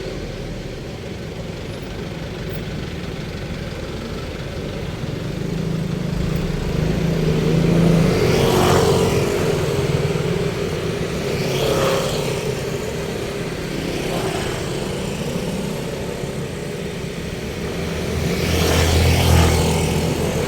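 Road traffic going by: a steady rumble of engines and tyres, with several vehicles passing close one after another, the loudest about eight seconds in, again at twelve, and near the end.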